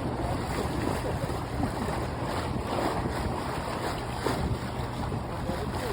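Wind buffeting the microphone over the wash of sea water around a sailing yacht under way, a steady rushing noise with small gusts.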